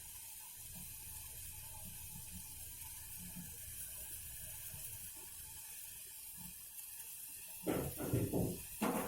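A pan of spiced herbal kadha boiling on a gas stove, bubbling steadily with a faint hiss. Near the end come a few short, louder noises: three close together, then one more.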